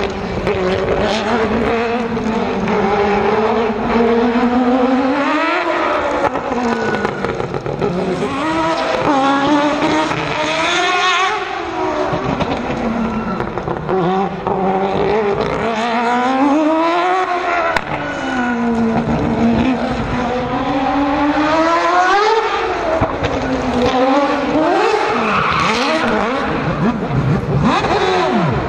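Mazda 787B's four-rotor R26B rotary engine revving hard and easing off again and again as the car runs a tight course, its pitch climbing to a peak and falling about every five to six seconds.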